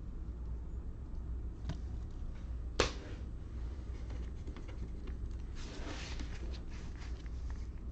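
Trading cards handled and flipped through by hand over a steady low hum: a sharp click a little under three seconds in, then a stretch of rustling.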